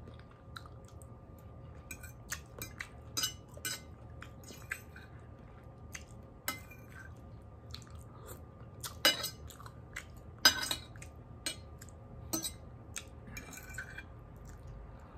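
Cutlery clinking and scraping on a plate while eating, in scattered sharp clicks, the loudest two about 9 and 10.5 seconds in, over a low steady hum.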